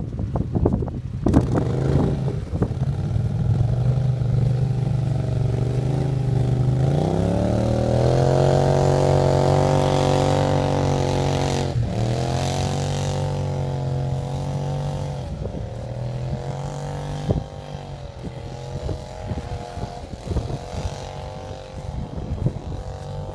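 Polaris Sportsman Touring ATV engine revving. Its pitch rises about seven seconds in and holds high, with a brief dip about twelve seconds in, then it sinks and fades as the quad drives away.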